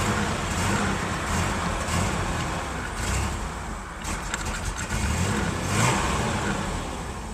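Ford Ranger's 4.0 L OHV V6 running roughly after starting, its revs rising and sagging unevenly as it is held on the throttle instead of settling into an idle. The owner takes this for the usual sign of a vacuum leak.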